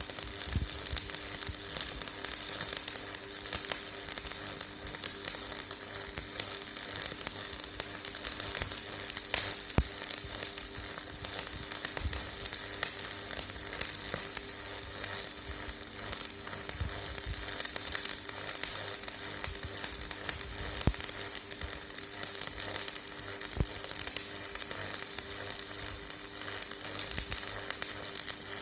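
Stick (electrode) arc welding: the arc crackles and sizzles steadily as a weld bead is run joining two flat bars, with a few sharper pops and a steady low hum underneath.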